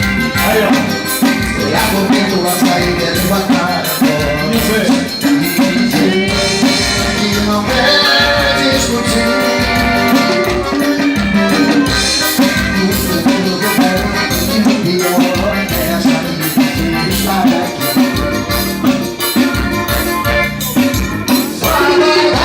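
Upbeat Latin-style music with a steady percussion beat and instrumental lines, without sung words in this stretch.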